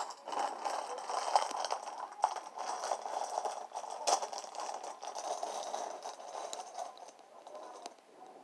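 Continuous scraping, crinkling handling noise with scattered small clicks, fading away near the end.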